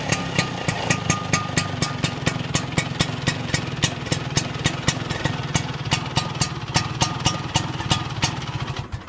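A 1950s Vespa's two-stroke engine running through a C.C.Corsa expansion racing exhaust, with a regular sharp ticking of about four a second over it. The sound stops abruptly near the end.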